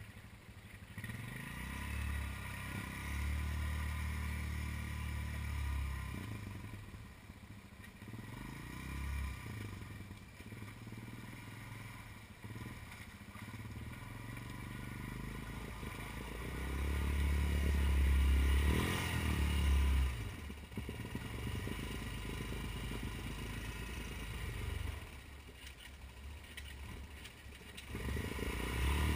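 Honda ATV engine running and revving in surges as the quad wades through a muddy creek. There are two strong surges, a short one early and a longer, louder one about two-thirds of the way through, each settling back.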